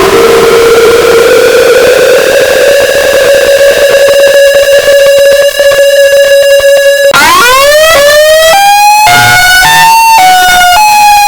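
Sirens: a siren rises in pitch and holds one steady tone for about seven seconds, then cuts abruptly to a second siren that glides up and then steps up and down between pitches about every half second.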